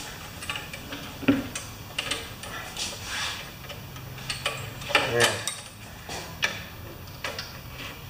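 Light metallic clicks, taps and clinks as a lawn mower's throttle cable is worked loose by hand, its stubborn Z-bend end being freed from the engine's linkage. The sharpest click comes about a second in, with a small cluster of clinks near the middle.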